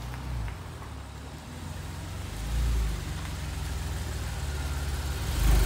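Porsche 911 Carrera's flat-six engine idling with a steady low pulsing, swelling louder briefly twice, about two and a half and five and a half seconds in.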